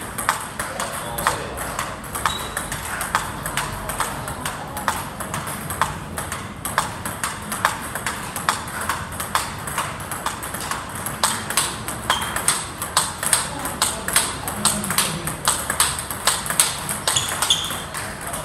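Table tennis ball being hit back and forth in a rally: a steady run of sharp clicks as the ball strikes the rubber-covered rackets and bounces on the table, several a second, coming faster in the second half.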